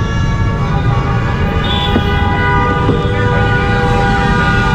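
A horn sounding as one long steady blare over a heavy, continuous rumble of street traffic.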